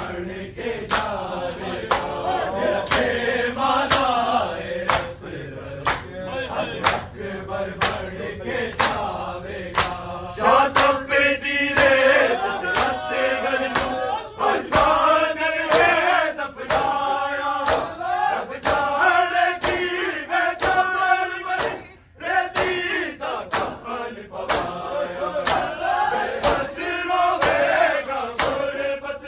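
Male voices chanting a noha together in a mourning lament, with the crowd's bare-chested matam: hand slaps on the chest, landing together about one and a half times a second.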